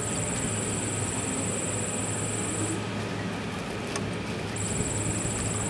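Motorcycle engine running steadily with a low hum, under a high-pitched buzz that drops out for about two seconds in the middle.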